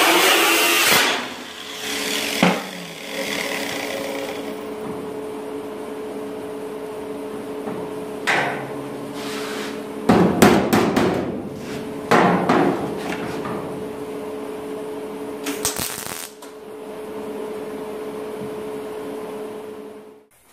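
An angle grinder on sheet metal runs loud, then cuts off about a second in and winds down. A steady hum carries on after it under scattered sharp metallic knocks and clanks, bunched about ten and twelve seconds in.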